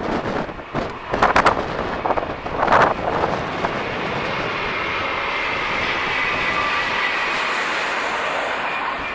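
V/Line VLocity diesel railcar set passing, a steady run of engine and wheel noise that settles in about three seconds in. Gusts of wind hit the microphone in the first few seconds.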